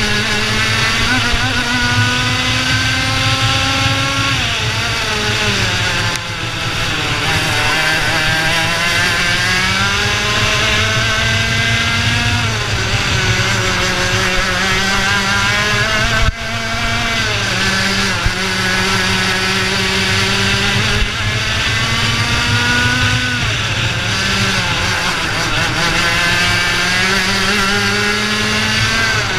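IAME Leopard 125cc two-stroke kart engine at racing speed, heard from the driver's helmet. Its pitch climbs steadily along each straight and drops sharply three times as the driver lifts for corners, about four, twelve and twenty-four seconds in.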